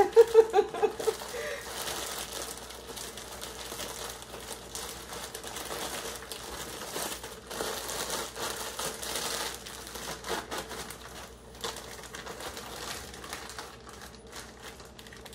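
Plastic bags crinkling as they are handled, an irregular run of rustles and crackles.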